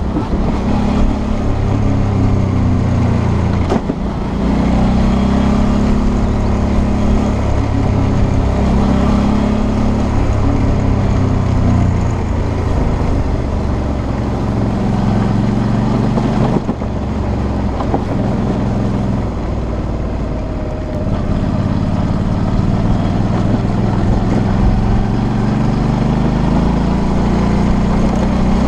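Suzuki V-Strom 650's V-twin engine running under way, its pitch rising and falling with the throttle, over a rush of wind and gravel noise. The engine sound drops off briefly about four seconds in and again around sixteen seconds in.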